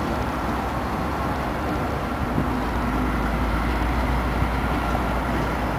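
Union Pacific GE AC4400CW (CW44AC) diesel-electric locomotive running light as it moves slowly away down a yard track, its 16-cylinder diesel giving a steady low rumble.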